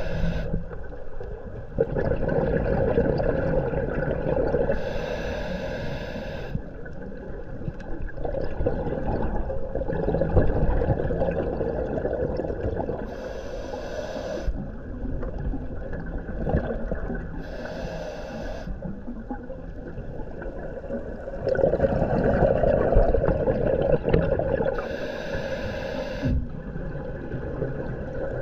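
A scuba diver breathing through a regulator, heard underwater. Each breath gives a hiss lasting a second or so, every five to eight seconds, over a steady rumble of bubbles and water.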